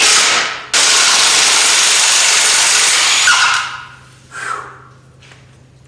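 Impact wrench running in a short burst, then a steady run of about three seconds, turning out a rusted, torch-heated exhaust manifold bolt.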